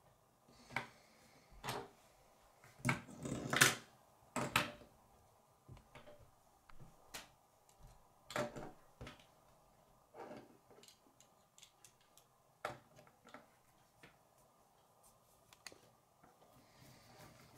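Plastic K'nex rods and connectors clicking, snapping and knocking on a wooden tabletop as pieces are pulled apart, set down and fitted together. The clicks are irregular, with the loudest, busiest run about three to five seconds in.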